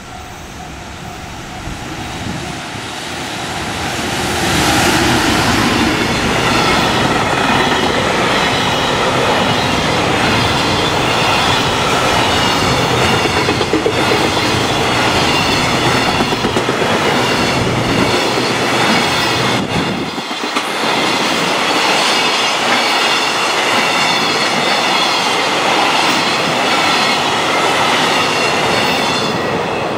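A JR Freight EF210 electric locomotive hauling a long container freight train approaches and passes at speed. The rush of the train swells over the first four or five seconds, then holds loud as the container wagons' wheels run by on the rails, and eases near the end as the last wagons pass.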